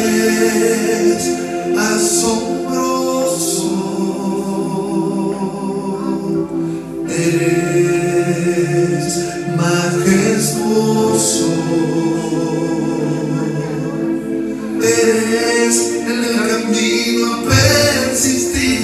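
Christian worship song: voices singing over instrumental accompaniment.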